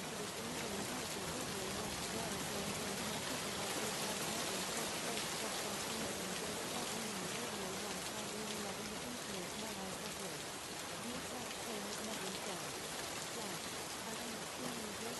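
Steady rain sound, an even hiss throughout, with a faint voice wavering underneath it.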